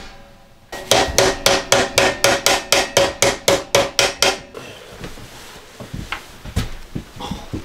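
Rapid metal-on-metal hammering on a cast-iron wood stove's seized latch, about five ringing blows a second for nearly four seconds, beating it loose. After that come a few lighter knocks and rattles at the stove.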